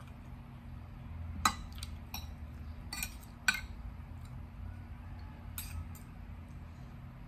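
Metal fork and spoon clinking against a plate while scooping and twirling rice noodles: a handful of light, separate clinks, the sharpest about a second and a half and three and a half seconds in.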